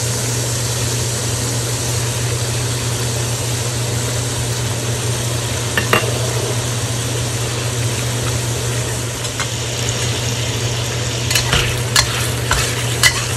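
Pork belly slices, ginger and garlic sizzling steadily in hot oil in a wok, over a low steady hum. About eleven seconds in, a metal spatula scrapes and clacks against the wok several times as the meat is stirred.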